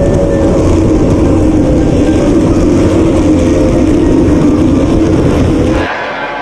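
An F1H2O racing powerboat's outboard engine, a Mercury two-stroke V6, running hard at a steady high pitch, heard from on board over a rough rush of noise. The engine sound cuts off abruptly a little before the end.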